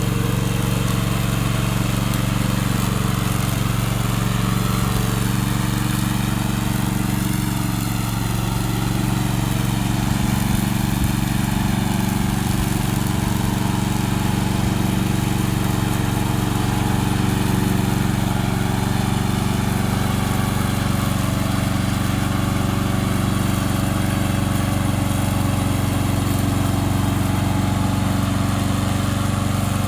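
Gasoline engine of a remote-control tracked lawn mower running steadily at an even speed.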